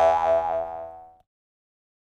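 Comic 'boing' sound effect with a wobbling pitch. It is dying away and cuts out a little over a second in.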